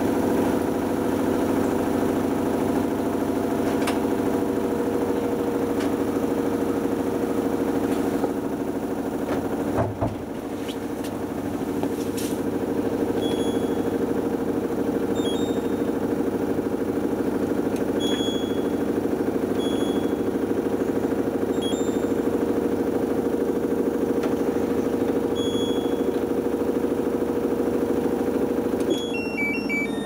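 LG Direct Drive front-loading washing machine running with a steady motor hum. Its control panel gives a series of short high beeps as buttons are pressed, and near the end the hum changes and a tone begins to fall.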